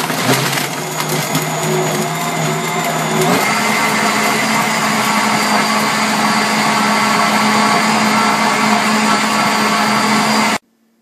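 JTC OmniBlend V high-speed blender running loaded with a wheatgrass smoothie and ice, a steady motor whine and churning noise. Its note sits lower for the first three seconds or so, then steps up and holds steady as the load eases, and it cuts off suddenly near the end.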